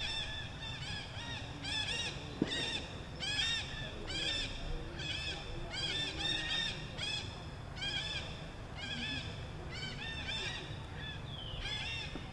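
A long run of short, high-pitched animal calls, each note rising and falling, about two or three a second. One sharp click sounds about two seconds in.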